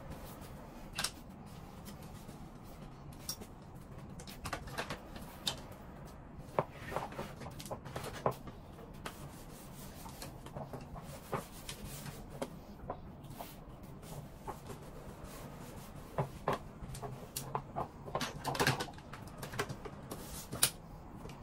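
A shirt being handled on a wooden hanger: fabric rustling and scattered sharp clicks of the hanger and steamer stand, busiest around six to eight seconds in and again near the end, over a steady low hum.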